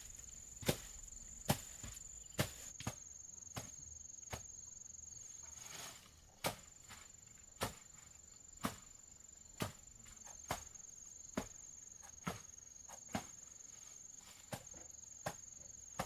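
Regular chopping strokes of a hand tool cutting through grass and brush, about one sharp strike a second. A steady, high-pitched insect drone runs underneath.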